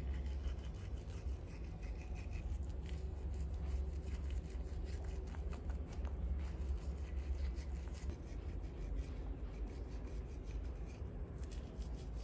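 Toothbrush scrubbing a baby monkey's teeth in many small repeated strokes, over a steady low hum.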